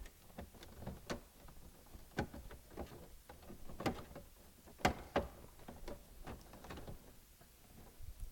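Triumph TR8 dashboard switch fascia panels being pressed and fitted back into place by hand: irregular plastic clicks and knocks, the sharpest about four and five seconds in.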